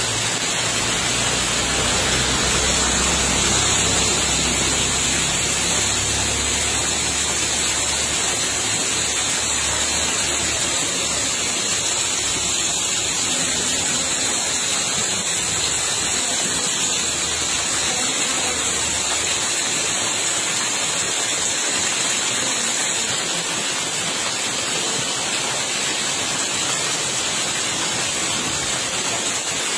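Steady rushing of water, an even loud hiss that does not change even when the view turns away from the water.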